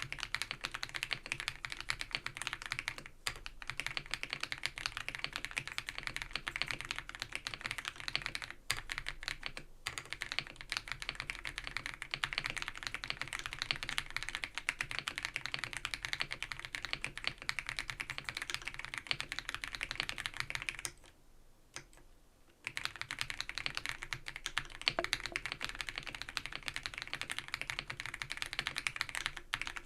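Fast, continuous typing on an ABKO AK100 mechanical keyboard with non-clicky Baby White switches: a dense clatter of keystrokes. It stops for about a second and a half roughly two-thirds of the way through, then resumes.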